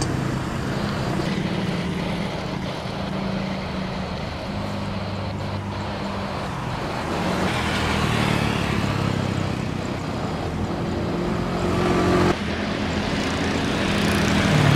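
Boeing 777-300ER's twin jet engines running at taxi power as the airliner taxis and lines up on the runway: a steady rumble with a low hum that wavers in pitch, with a short, sudden dip about twelve seconds in.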